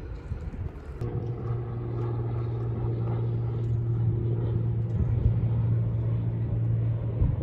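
A car in motion heard from inside the cabin: after about a second a steady low engine hum sets in over road rumble, with a couple of knocks near the end.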